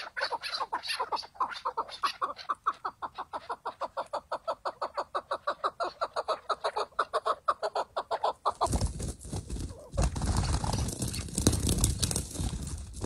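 Chukar partridge calling: a long, fast series of clucking chuk notes, about five a second. About two-thirds of the way in, the calls give way to a loud rushing noise.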